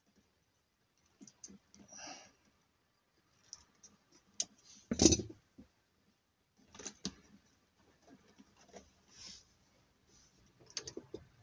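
Small clicks and rustles of car-radio wires, plastic connectors and pliers being handled, with one loud knock about five seconds in.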